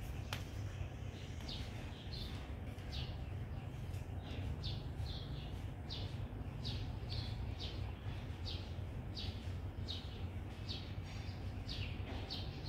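Small bird chirping over and over, short descending chirps at about two a second, over a steady low background rumble. A single sharp click sounds near the start.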